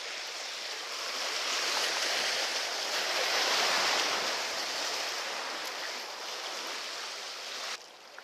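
Sea waves washing, a steady rushing hiss that swells in the middle and cuts off suddenly near the end.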